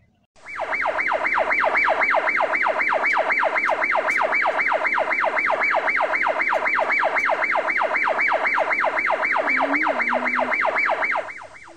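Electronic siren sounding a fast yelp, its pitch sweeping rapidly up and down about three to four times a second; it starts abruptly about half a second in and cuts off just before the end.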